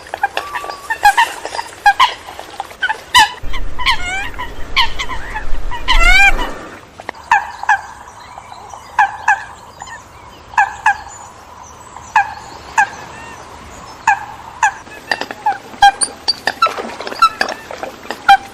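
Eurasian coots calling: a series of short, sharp, pitched calls at uneven spacing. About four to six seconds in there is a cluster of quick rising chirps over a low rumble.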